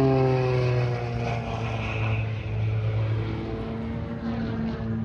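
Twin-engine jet airliner on landing approach passing low overhead: its engine whine slides down in pitch as it goes by. A steady low drone continues as the aircraft flies away.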